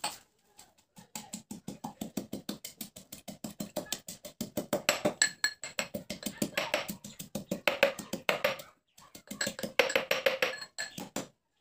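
Steel pestle pounding rapidly in a small stainless-steel mortar, about six or seven strikes a second, each with a bright metallic ring, with a brief pause about nine seconds in.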